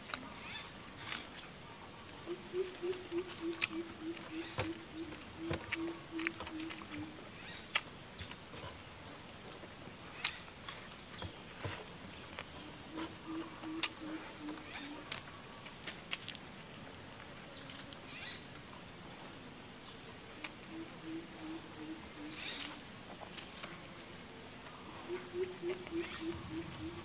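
Eating by hand: chewing, lip smacks and short clicks of fingers picking food off a metal tray. Under it runs a steady high insect drone, and several runs of a low pulsing animal call, each lasting a few seconds.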